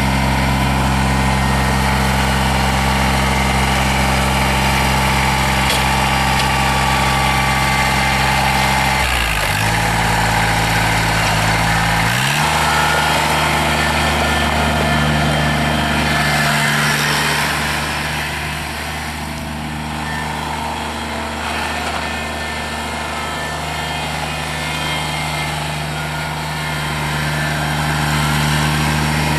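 Kubota BX22's small three-cylinder diesel engine running steadily. About 9 s in its speed dips briefly, then about 12 s in it speeds up and holds a higher steady speed.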